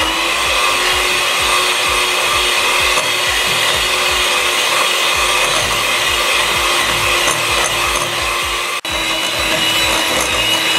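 Handheld electric mixer running at a steady pitch, its beaters creaming butter and powdered sugar in a glass bowl until fluffy. There is a momentary break near the end.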